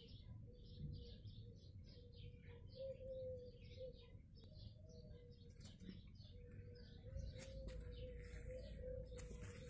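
Faint chirping of small birds, short calls repeated throughout, over a faint steady hum.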